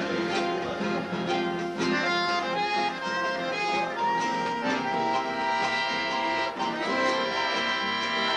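A bandoneón playing a melody over held chords, with a guitar strumming along.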